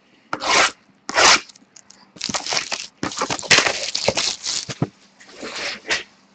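A box of trading cards being opened and emptied: cardboard and foil-wrapped packs rustling and crinkling, with two short scrapes in the first second or so, then a longer stretch of crinkling.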